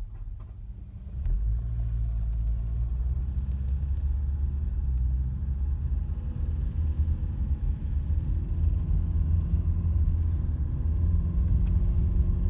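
Subaru EJ20 2.0 L flat-four engine running, getting louder about a second in and holding a steady low rumble, its pitch starting to rise near the end. The owner hears a piston knock in it, which a diagnostic check put down to worn No. 4 (and likely No. 2) pistons.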